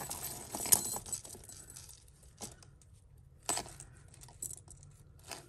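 Costume jewellery clinking and jangling as hands move pieces in a heap of metal bangles, chains and earrings: a busy jingle in about the first second, then a few separate clinks.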